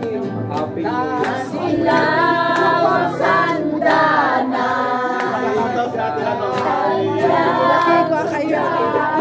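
A group of people, women's voices to the fore, singing a song together with loud, held notes.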